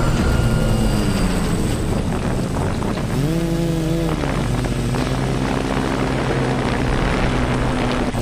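Quadcopter's electric motors and propellers running with a steady whine, rising in pitch for about a second around the middle as the throttle is opened, then dropping back.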